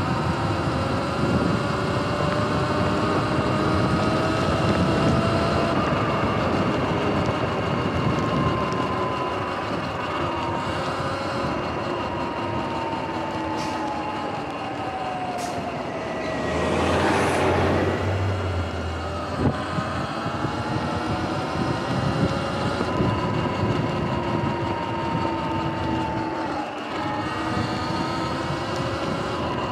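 Sur-Ron Light Bee electric dirt bike under way: the motor's whine rising and falling in pitch with speed, over tyre and wind noise. A bit past halfway a vehicle passes the other way with a brief swell of noise.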